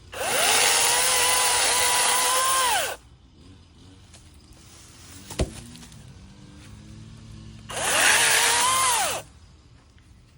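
Ego 16-inch electric chainsaw running at full speed with a steady whine for about three seconds, then winding down. It runs again for about a second and a half near the end. A single sharp knock comes in between.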